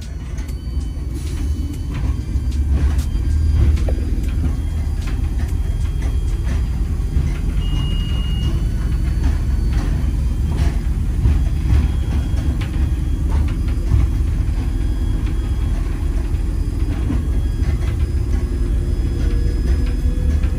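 Train running along the rails, heard as a steady low rumble with scattered clicks and knocks from the wheels and running gear.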